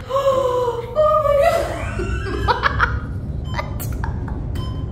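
A woman laughing in high, wavering bursts for the first couple of seconds, over the steady low rumble of the moving elevator car, which carries on alone after that with a few faint ticks.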